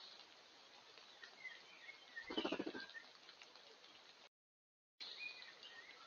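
Faint, scattered chirps of small wild birds in woodland. A brief, louder rattle of rapid strokes comes about two and a half seconds in. The sound cuts out completely for under a second just past the middle.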